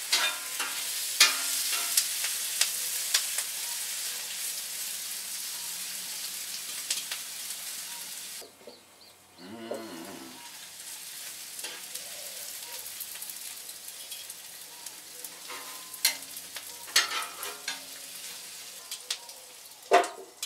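Sliced onions sizzling on a hot oiled flat-top griddle, with sharp clicks and scrapes of metal tongs on the steel as they are turned. The sizzle drops away briefly about eight seconds in, and near the end a metal basting cover clanks down over the onions.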